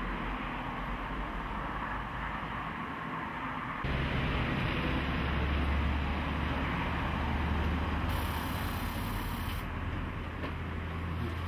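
Electric fuel pump switching on about four seconds in and humming steadily as it builds fuel pressure in the rail. A short high hiss of about a second and a half comes near the end.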